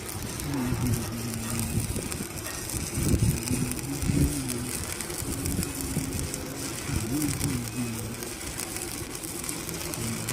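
Stick-welding (SMAW) arc crackling and hissing steadily, over a low hum that holds and then shifts in pitch several times.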